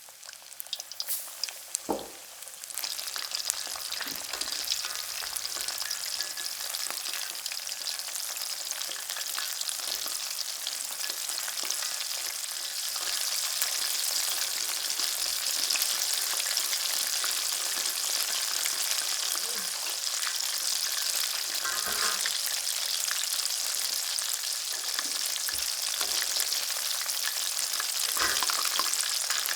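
Chicken karaage pieces deep-frying in hot oil: a steady sizzle that builds over the first few seconds after some sharp crackles. There are a few brief knocks along the way.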